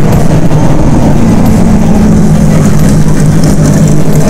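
De Tomaso Pantera's V8 engine running at low speed as the car pulls slowly past and away, a steady low exhaust note.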